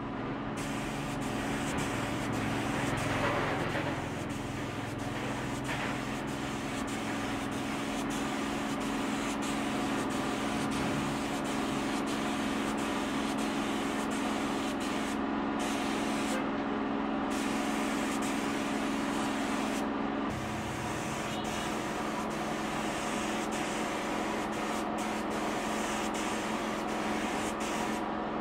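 Gravity-feed spray gun hissing as it sprays finish onto wood, over a steady mechanical hum. The hiss cuts out briefly a few times past the halfway point.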